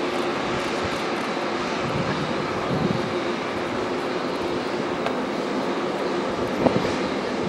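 Boeing 747-8's four GEnx jet engines at taxi power as the airliner rolls past: a steady rush of noise with a faint steady tone in it.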